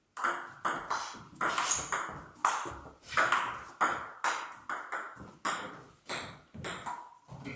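Table tennis rally: the ball clicks sharply off the bats and bounces on the table, two to three hits a second in a steady run.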